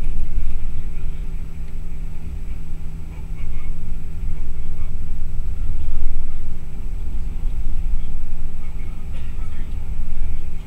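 Bus cruising at highway speed, heard from inside the cabin: a loud, steady low engine drone and road rumble.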